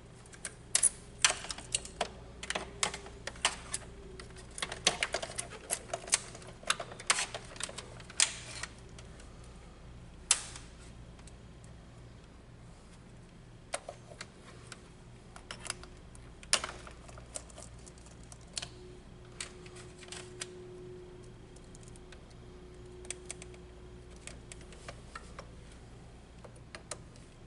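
Hands working a plastic GFCI circuit breaker and its wires inside a metal breaker panel: a quick run of sharp clicks and taps over the first nine seconds or so, then scattered clicks. A faint steady low hum underneath.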